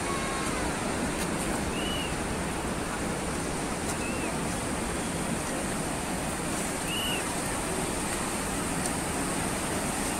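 Steady noise of sea surf breaking on a beach, with three short, faint chirps on top.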